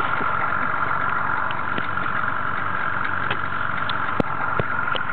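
A small boat's motor running steadily at idle, with two sharp clicks about four seconds in.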